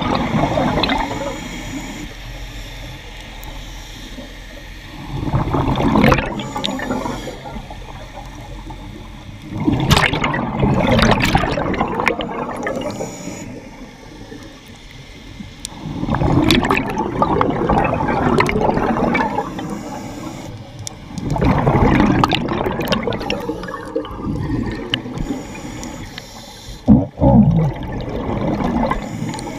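Scuba diver's exhaled breath bubbling out of the regulator, heard underwater: six gurgling bursts of two to three seconds each, about every five to six seconds, with quieter stretches between them.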